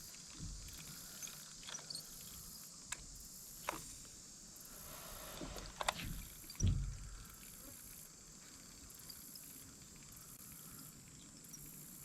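Outdoor ambience with a steady, high, pulsing insect drone, broken by a few light clicks and one soft thump a little over halfway through.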